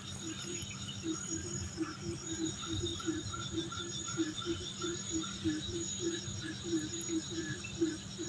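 Insects calling in chorus: a steady high-pitched trill under a low pulsing call that repeats about three or four times a second.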